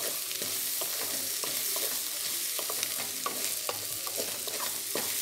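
Egg and grated bottle gourd bhurji sizzling as it is fried in a stainless steel kadai, with a steady hiss. A wooden spatula stirs it, scraping and tapping against the pan several times a second.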